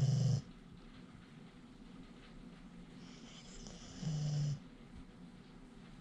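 Labrador retriever snoring in her sleep: two breaths about four seconds apart, each a soft nasal hiss followed by a short, low, buzzing snore, the first right at the start and the second about four seconds in.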